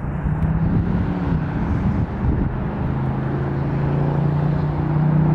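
Distant airliner jet engines rumbling as a twin-engine Boeing 737 touches down, with a steady low hum that settles in about halfway through.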